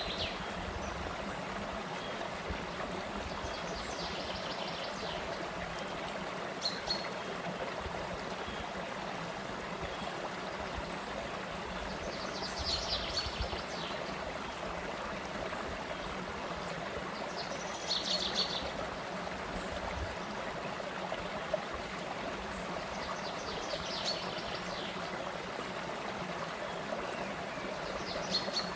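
Shallow forest stream running steadily over rocks and small cascades. A bird gives a short trilled call, high-pitched, about every five or six seconds.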